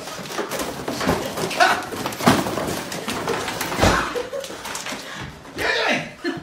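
A Boston Terrier tearing and shaking a cardboard box. The cardboard rips and crumples in a run of scrapes and knocks against a wooden floor.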